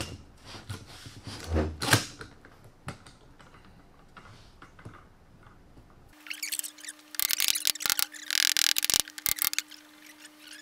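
Bar clamps being fitted and tightened on glued wood strips around a bending form: scattered clicks and knocks, with one heavier knock about two seconds in. After about six seconds a steady low hum comes in, and a dense run of loud clicking and rasping follows for about two seconds.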